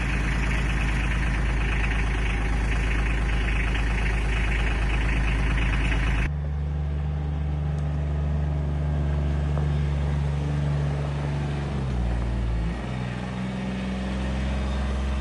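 Polaris Ranger utility vehicle engine running steadily at idle. About six seconds in the sound changes abruptly to a smoother, lower hum, and the pitch shifts briefly near twelve seconds.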